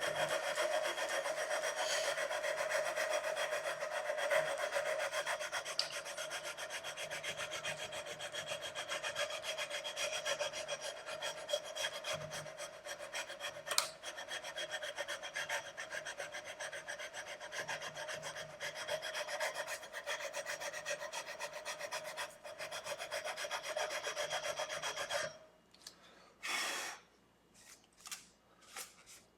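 A long fret-levelling bar rubbed rapidly back and forth along a guitar's frets, scraping down the high frets so they are all level before re-crowning. The steady scraping stops about 25 seconds in, followed by a few brief scrapes.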